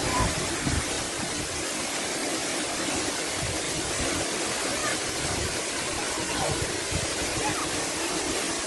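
Steady rushing noise of the Efrata waterfall's falling water.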